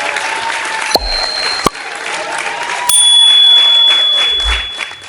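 Applause with some cheering, broken by bell-like dings: a short ding about a second in and a louder, longer ring about three seconds in. It all fades out at the very end.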